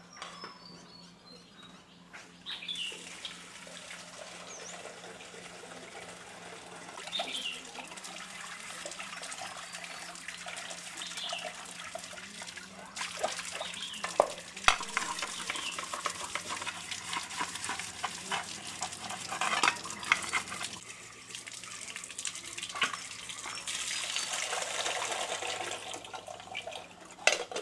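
Water splashing and trickling, with scattered clicks and knocks, as in hands washing something in a basin or sink.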